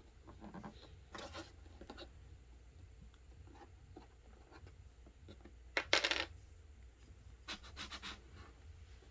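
Plastic Play-Doh toys and tools being handled and scraped on a tabletop: short scratches and light clattering knocks, the loudest about six seconds in and a quick cluster about a second and a half later.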